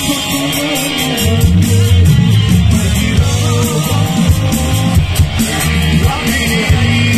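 Live band music with an electric guitar up front and a steady drum beat, loud, as heard through the PA from the audience.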